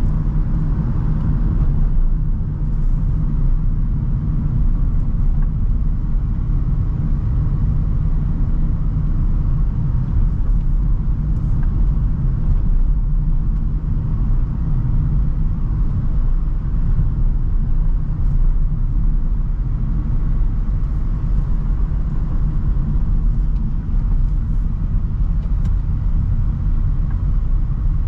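Renault Trafic van on the move, a steady low rumble of engine and road noise with no change in pace.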